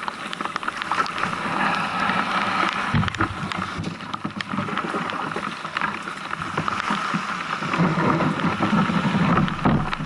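Small waves washing over shingle at the water's edge, then a sea kayak's hull grinding and scraping over the gravel beach as it is dragged up by the bow, with a rattle of stones. The scraping is loudest near the end.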